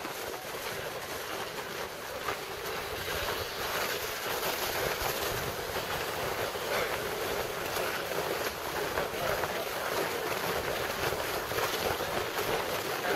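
A large crowd tramping across packed snow: many footsteps crunching at once, blending into a steady, even wash of noise.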